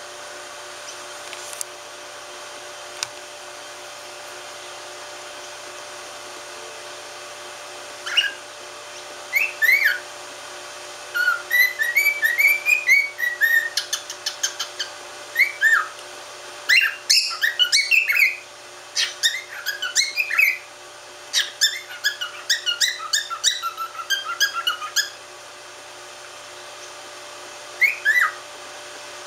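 Cockatiel whistling: after a quiet start, about eight seconds in it begins quick runs of short, clear notes that slide up and down, with a pause near the end before it starts again.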